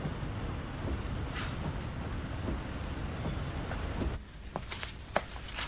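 Steady driving noise heard from inside a car's cabin, a low engine and tyre rumble. It cuts off abruptly about four seconds in, giving way to quieter room tone with a few faint clicks.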